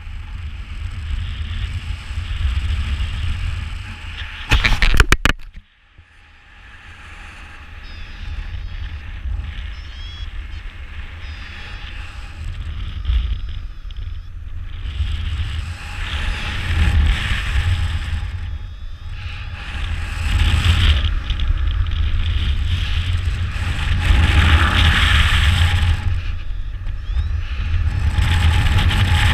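Wind rushing and buffeting over a paraglider's camera microphone in flight, swelling and fading in waves as the glider swings through wingovers. About five seconds in there is a brief, very loud crackling burst, followed by a moment of near silence.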